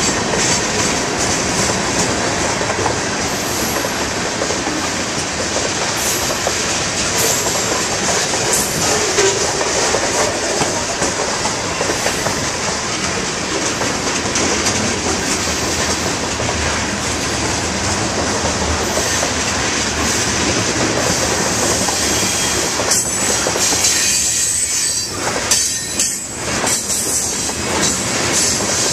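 Freight cars of a long train, mostly tank cars and covered hoppers, rolling past close by: a steady rumble and rattle of steel wheels on rail with a constant high wheel hiss. Near the end, sharper clicks of wheels over rail joints come through.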